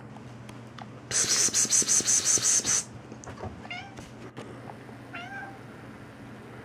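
A strip of duct tape pulled off the roll in one stuttering rip lasting under two seconds, the loudest sound, followed by a cat meowing twice in short calls.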